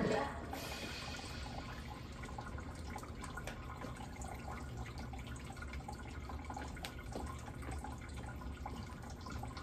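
Dance music cutting off right at the start, leaving a steady low background noise with a few faint clicks.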